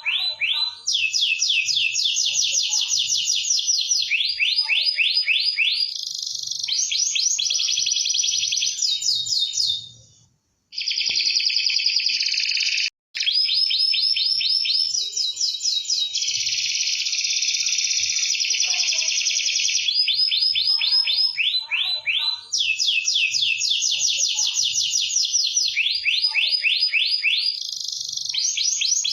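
Domestic canary singing in long, fast trills of rapidly repeated notes, phrase after phrase with hardly a pause. About ten seconds in, the song breaks off for about two seconds before resuming.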